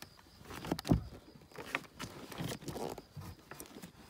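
Handling noise from a plastic bag holding a striped bass: rustling and scattered knocks, with one dull thump about a second in.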